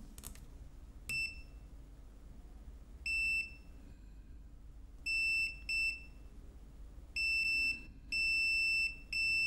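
Multimeter continuity beeper sounding a steady high beep each time the probes touch a point tied to the board's ground. There are about seven beeps of uneven length, some short and one held for nearly a second.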